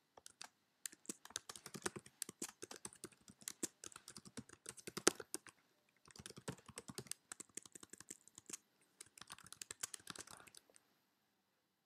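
Typing on a computer keyboard: rapid key clicks in several runs with short pauses between them, stopping about a second before the end.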